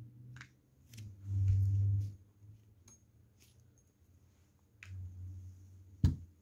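Model Stirling engine running almost silently on a spirit burner, with a faint low hum that comes and goes and a few light clicks. A single sharp knock sounds about six seconds in, as a hand reaches toward the engine.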